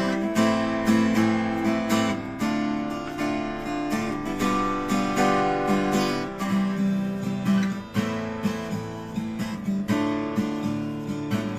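Deviser acoustic guitar strummed in ringing chords, a steady rhythm of strokes at about two a second.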